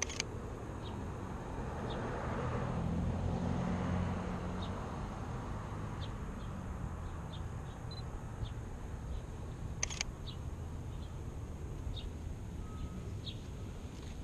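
Camera shutter clicking twice, at the very start and again about ten seconds in. Between them a car passes, its engine swelling and fading over the first few seconds, while birds chirp faintly in the background.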